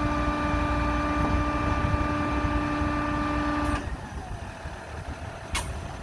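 Roof-mounted train horn on a Ford Aerostar minivan blowing one long, steady multi-note chord that cuts off abruptly about four seconds in.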